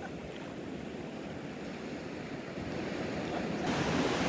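Ocean surf washing on a beach, a steady rush of waves that grows louder toward the end.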